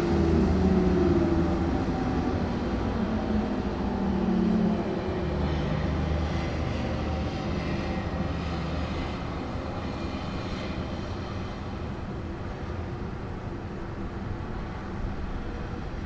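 Outdoor tornado warning siren winding down, its pitch falling steadily and dying away about five seconds in. A low steady rumble of background noise goes on after it.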